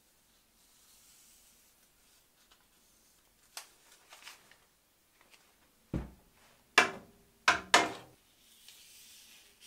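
A long metal spirit level knocking against the cast-iron table top of a cabinet saw as it is moved and set down. A few faint clicks come first, then a dull thump about six seconds in and three sharp knocks soon after.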